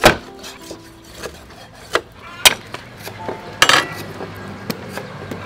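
Meat cleaver chopping through a raw whole chicken onto a wooden chopping board: a few sharp chops at uneven intervals, the loudest right at the start and about two and a half seconds in, with handling of the meat between.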